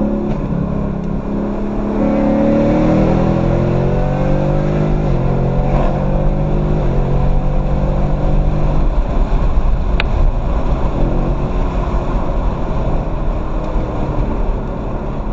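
Ford Mustang GT's V8 accelerating hard up through the gears, its pitch climbing and then dropping at each shift. About nine seconds in the engine note fades into a steady noisy rush, with a single sharp click a second later.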